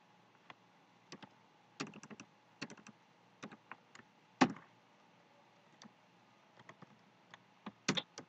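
Computer keyboard being typed on in short, irregular bursts of key clicks with pauses between, one key strike about four seconds in louder than the rest.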